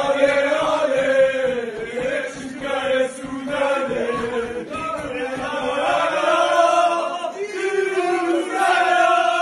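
A group of men chanting a victory song together in unison, with short breaks between phrases.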